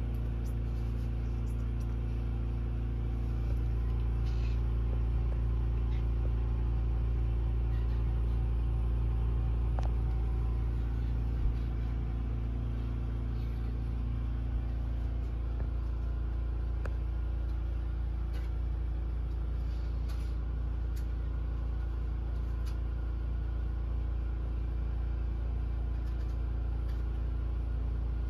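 Steady low mechanical hum, even throughout, with a few faint clicks.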